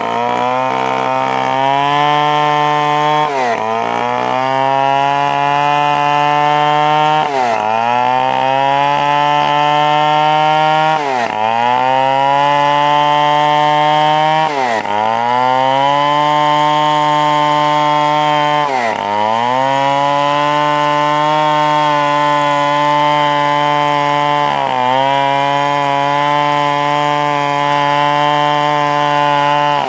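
Stihl 070 two-stroke chainsaw at high revs, sawing acacia timber under load. Its pitch dips sharply and recovers about every four seconds.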